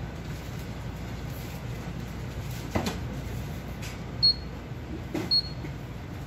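Two short, high electronic beeps from a convenience-store checkout terminal, about a second apart, over a steady low hum of shop ambience, with a soft knock a little before them.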